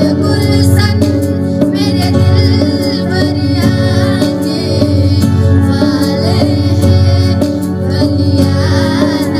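A woman singing to electronic keyboard accompaniment, with a steady beat.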